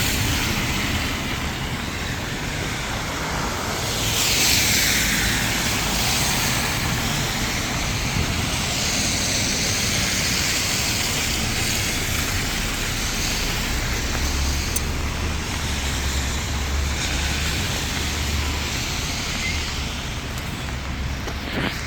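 Heavy rain falling steadily, with vehicles passing on the wet road. A tyre hiss swells about four seconds in and again around nine seconds, and a low engine rumble runs through the second half.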